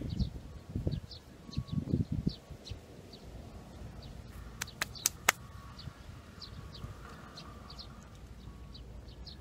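A small bird chirping over and over with short, high chirps. There are low rustling bumps in the first two seconds and a few sharp clicks about five seconds in.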